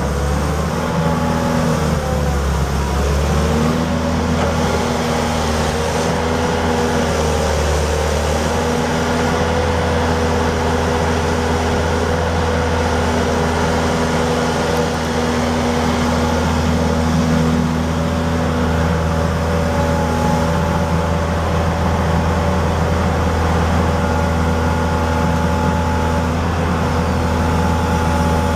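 The John Deere diesel engine of a 1999 John Deere 160LC excavator running steadily under hydraulic load as the boom, stick and bucket are worked, a constant drone with a higher whine over it. The pitch shifts a little in the first few seconds.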